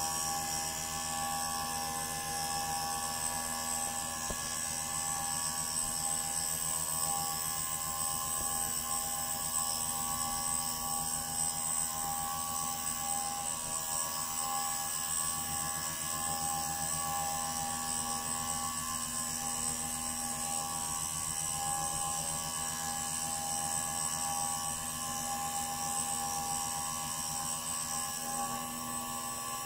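CNC 3020 desktop router's spindle running steadily with a high whine while a 6 mm end mill cuts into plywood.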